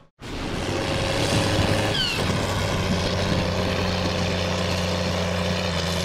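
A heavy engine running steadily at constant speed, with a short falling whine about two seconds in.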